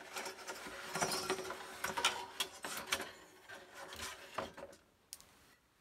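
Toy parts being handled: scattered clicks, taps and rubbing, dying away to near silence about four and a half seconds in.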